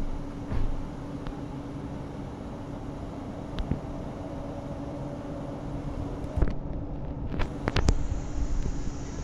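Steady noise of city road traffic with a constant low hum; a few sharp knocks and clicks near the end.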